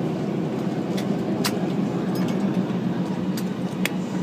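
Steady cabin noise of an airliner taxiing after landing: the low, even hum of the engines and air system, with a few sharp clicks from inside the cabin.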